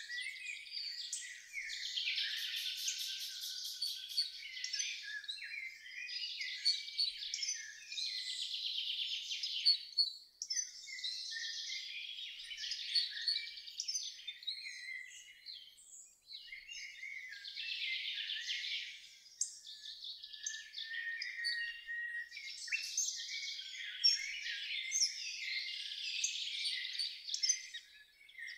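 Songbirds singing: a dense run of chirps and rapid trills in bouts of a few seconds, with short pauses between them.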